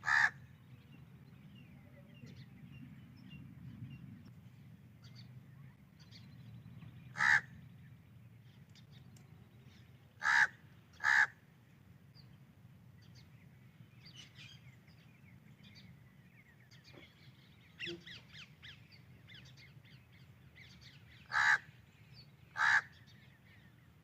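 Crow cawing: six short single caws spaced out, two of them coming as pairs about a second apart. Faint chirps of small birds come between them, over a low steady rumble.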